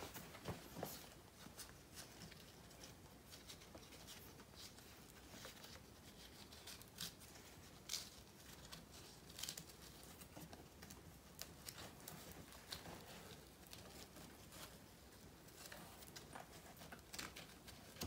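Faint, scattered rustles and light clicks of a strap being wound up and tucked into a Velcro cover on a motorcycle luggage bag.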